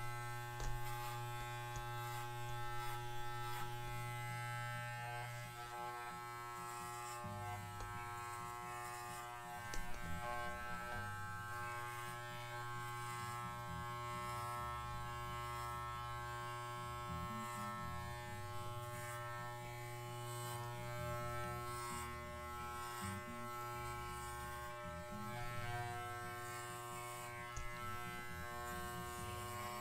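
Corded electric dog clippers running with a steady buzz as they shave a dog's coat.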